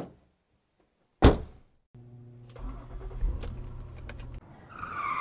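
Car sound effects: a single thump like a car door shutting about a second in, then an engine starting and running steadily, then tyres squealing near the end.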